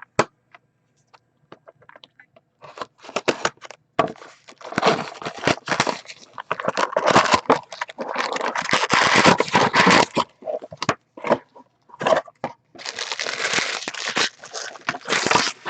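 Plastic shrink wrap and packaging crinkling and tearing in irregular spells as a sealed trading-card box is opened.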